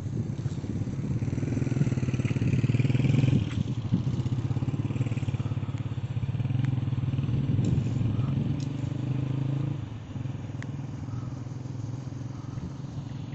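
An engine idling steadily close by, easing off and quieter from about ten seconds in.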